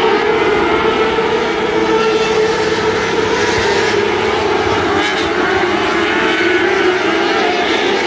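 A pack of 600cc wingless micro sprint cars racing on a dirt oval, their high-revving motorcycle engines blending into a loud, continuous drone of many overlapping pitches.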